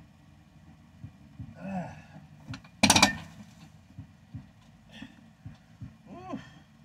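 A man strains through a dumbbell press with a short grunt, then a sudden loud clatter about three seconds in as he drops the dumbbells. A short rising-and-falling vocal sound comes near the end.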